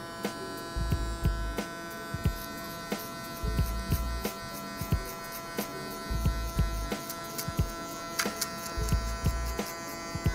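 Electric hair clipper running with a steady buzz while cutting short hair around the ear and neckline. Irregular clicks and low knocks come as it is moved against the head.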